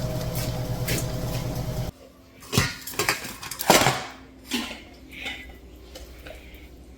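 A vehicle engine runs steadily and cuts off suddenly about two seconds in. Then comes a string of sharp metallic clanks and clinks, the loudest near the middle, with quieter knocks after them.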